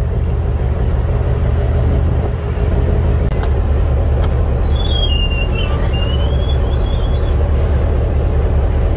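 Fishing boat's engine running steadily under way, a loud low drone. A brief high squeak comes around the middle.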